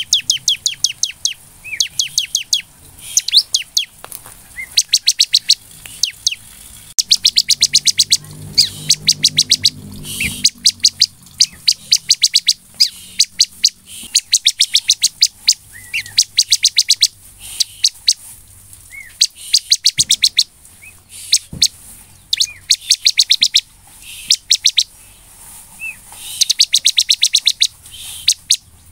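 Bar-winged prinia (ciblek) singing hard: repeated bursts of rapid, sharp ticking notes, about a dozen a second, each burst lasting a second or two, with single short rising chirps between the bursts.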